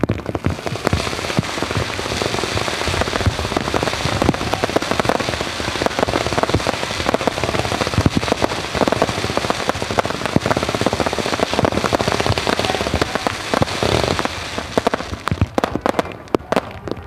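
Fireworks going off in heavy rain: a dense run of bangs and crackling over a steady hiss, thinning to scattered separate bangs near the end.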